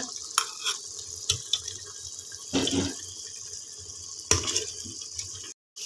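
Yogurt and masala gravy cooking in a metal pressure cooker pot with a steady hiss as a metal ladle stirs it, knocking against the pot a few times.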